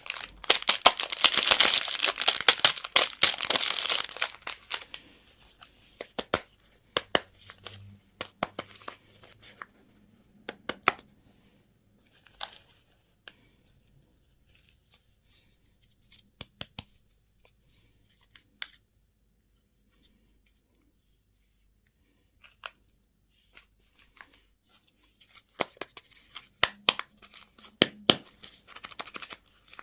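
Plastic candy wrappers being torn open and crinkled. There is a dense burst of crackling tearing over the first few seconds, then scattered crinkles and small clicks, a long quiet stretch in the middle, and more crinkling near the end.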